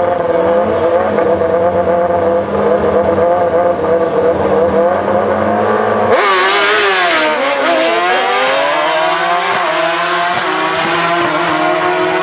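Drag-racing motorcycle engine held at steady high revs on the start line, then launching about six seconds in: suddenly much louder, its pitch dipping and climbing again through gear changes as it accelerates away.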